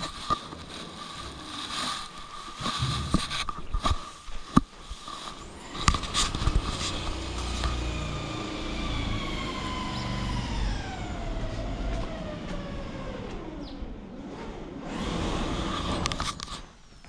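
A passing engine: a steady whine that, about six seconds in, starts to fall slowly in pitch over several seconds with a low rumble underneath, then fades. Scattered footsteps and knocks in the first half.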